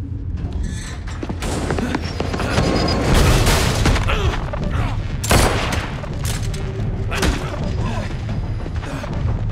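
Fight-scene sound effects of a scuffle: blows, thuds and body impacts, with a sharp hit about five seconds in and another near seven seconds. Underneath runs a steady low drone of music.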